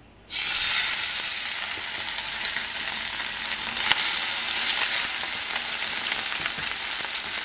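Salmon fillets sizzling as they are laid skin side down into hot olive oil in a frying pan. The sizzle starts suddenly just after the start, with fine crackles, and swells again about four seconds in as a second fillet goes in. The sizzle is the sign that the oil is hot enough to fry.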